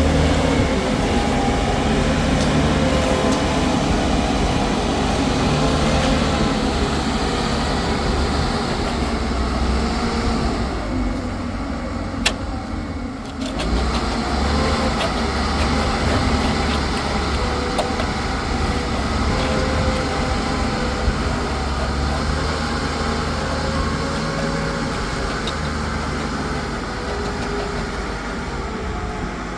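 Concrete mixer's engine running steadily, with the sound easing briefly about halfway through and one sharp click.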